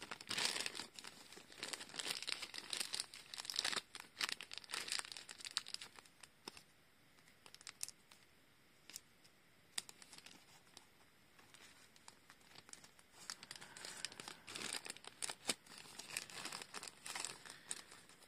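A thin pink plastic blind bag being handled, crinkling and rustling. Scissors cut into it, with a few sharp snips in a quieter stretch in the middle. The busy crinkling comes in the first few seconds and again near the end.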